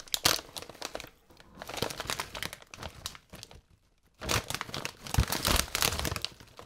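Plastic Lay's potato chip bag crinkling as it is handled, in irregular rustling bursts. There is a short lull about three and a half seconds in, and after it the crinkling comes back louder.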